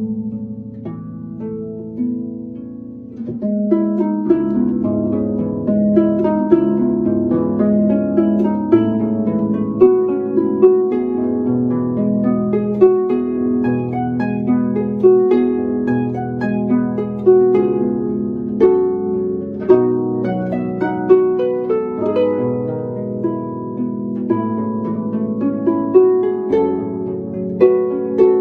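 Background music: a melody of plucked string notes over held lower notes, growing fuller and louder about three and a half seconds in.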